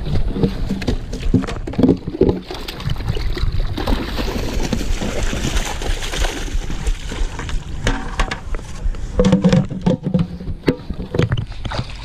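A bucketful of water with trout poured from a plastic bucket into a stream, splashing and gushing for about three seconds in the middle. Before it come knocks from the bucket lid being pulled off, and after it thumps and rustling in dry grass.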